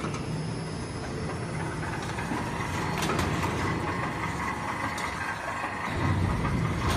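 Sheet-metal bending machine running with a steady mechanical hum. A faint whine comes in about two seconds in, a few light clicks sound, and the hum grows louder near the end.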